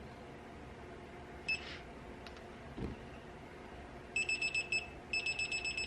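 Digital torque wrench beeping. There is one short beep about a second and a half in, a dull knock near three seconds, then a fast string of high beeps from about four seconds in with a brief pause near five seconds. The fast beeping is the wrench's warning that the main-stud nut is getting close to the 40 ft-lb target torque.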